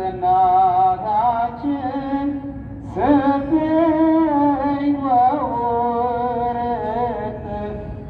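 Ethiopian Orthodox hymn (mezmur) sung in long, wavering, melismatic phrases, with a new phrase starting about three seconds in.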